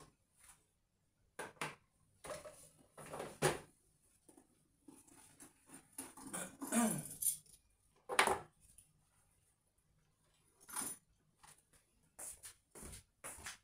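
A person moving about and handling small objects: irregular knocks, clicks and rustles, with a longer scraping stretch that falls in pitch about seven seconds in.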